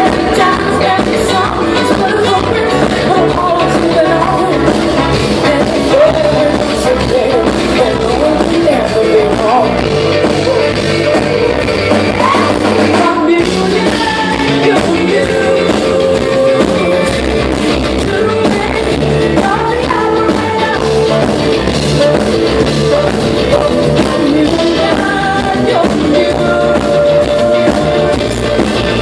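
Live rock-pop band playing loud and full, with a female singer's voice over guitar and a steady drum beat, heard through a concert-hall recording.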